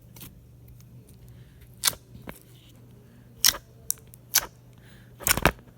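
Slime being pressed and poked, giving a series of sharp, short clicking pops, about seven in all, with a quick cluster near the end.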